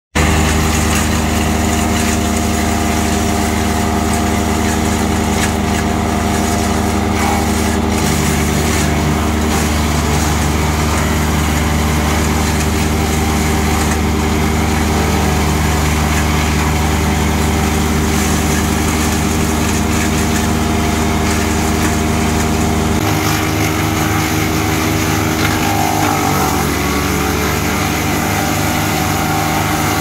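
GL&D Fusion Motor Evo 6-inch towable woodchipper running with its diesel engine at steady working speed while it chips brush. The engine note shifts about three-quarters of the way through.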